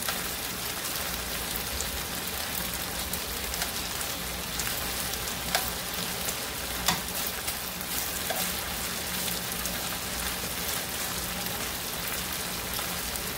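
Thin slices of marinated beef sirloin sizzling steadily in hot oil in a frying pan as they are seared, with a few light clicks of metal tongs against the meat and pan.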